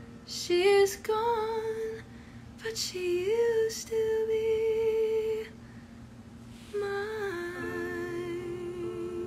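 A woman's voice singing three short phrases, each bending into a long held note, with a faint steady low tone beneath.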